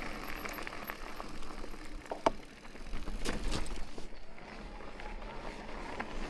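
Amflow electric mountain bike rolling along a dirt trail: tyre and wind noise with sharp clicks and knocks from the chain and frame over bumps, and a short squeak a little over two seconds in.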